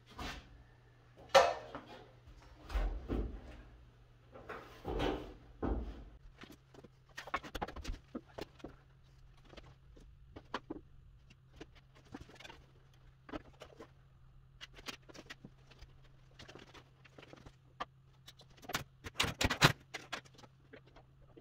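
Irregular knocks, clunks and light rattles of sheet metal and hardware as a 1948 GMC truck hood is handled and fitted single-handed. The louder knocks come about a second and a half in, around five seconds in, and as a cluster near the end, over a steady low hum.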